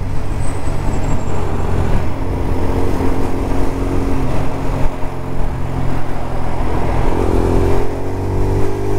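Lexmoto LXR 125 motorcycle's 125 cc single-cylinder engine running at road speed, with the engine note rising about seven seconds in as it accelerates.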